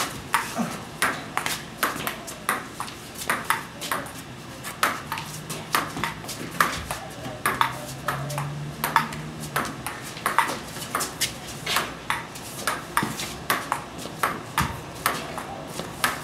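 Table tennis ball clicking back and forth in a continuous rally, paddle hits alternating with bounces on the table, a sharp click two or three times a second.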